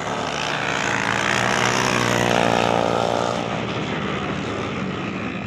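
Racing motorcycle engines at full throttle, getting louder as the bikes come past about two to three seconds in, then fading as they move away.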